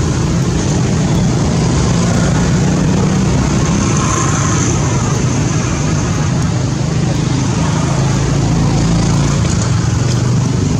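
Steady low drone of a running engine over a constant hiss, unchanging in level.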